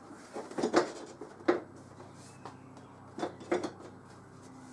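Plastic motorcycle side panel being offered up and fitted to the bike, giving a few scattered light knocks and clicks.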